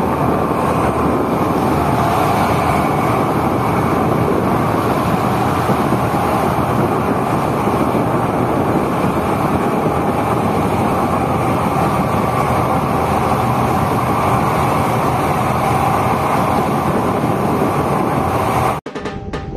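Steady rush of wind and engine drone on the passenger deck of a ferry under way. Near the end it cuts off abruptly and music with a beat starts.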